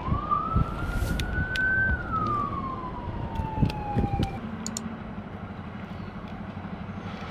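A siren wailing: its pitch rises slowly for about two seconds, then falls more slowly and fades out about halfway through. A low rumble and a few sharp clicks sound underneath.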